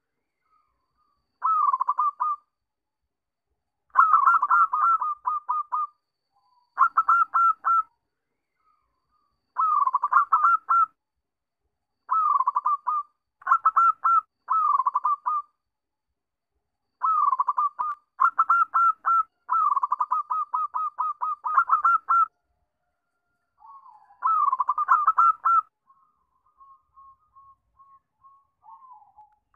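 Zebra dove (perkutut) singing: about a dozen phrases of rapid, staccato cooing notes, each lasting a second or two with short pauses between. A softer run of quiet notes comes near the end.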